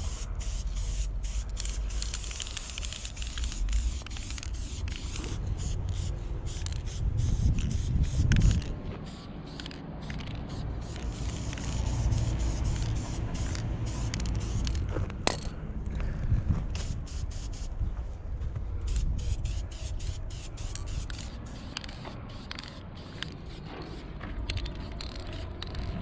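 Aerosol spray paint can spraying in short, repeated on-and-off bursts of hiss as pink paint is laid onto a wall, with a low rumble underneath.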